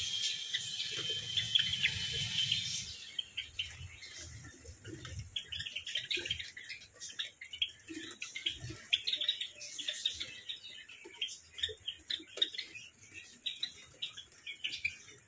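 A flock of Java sparrows chirping in an aviary: many short, quick chirps overlapping, several a second. For about the first three seconds a steady hiss is louder than the birds.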